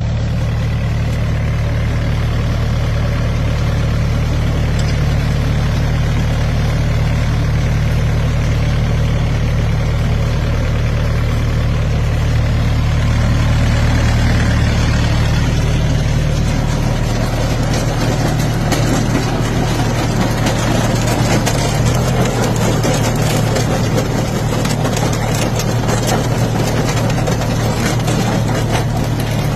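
Engine of an apple harvesting machine running steadily, its low hum changing about halfway through as more rattling and mechanical clatter come in.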